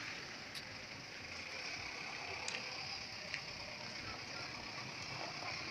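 Street ambience: a steady hum of traffic and town noise, with a few faint clicks.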